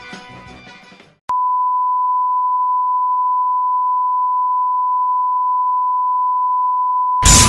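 Music fades out. Then, after a click about a second in, a single steady electronic beep tone holds at one pitch. Near the end a loud burst of noise cuts in over it.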